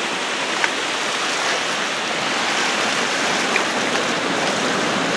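Floodwater rushing out through the open chutes of a river dam, a steady loud rush of whitewater; the river is swollen and running about three feet above normal.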